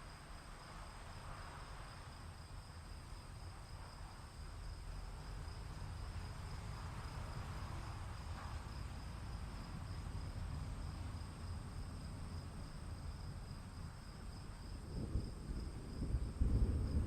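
Crickets chirping steadily over a low rumble of thunder, which grows louder near the end.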